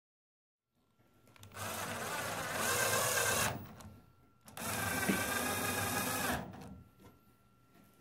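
Cordless drill-driver running in two runs of about two seconds each, driving screws to fasten a microwave oven's sheet-metal case back on; a steady motor whine.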